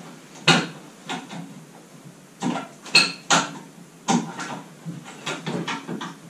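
Irregular metallic clinks and knocks as hands and tools work on a convertible car's soft-top roof frame, one clink about halfway through ringing briefly.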